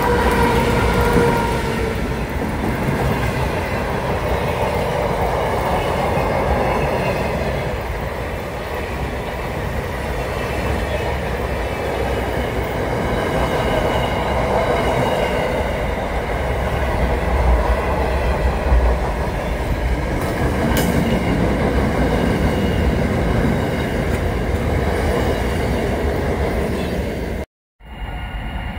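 A Pacific National diesel-hauled freight train passing close by: the locomotive, then a long string of wagons rumbling and clattering over the rails, with a thin high whine at times. The sound cuts off abruptly near the end.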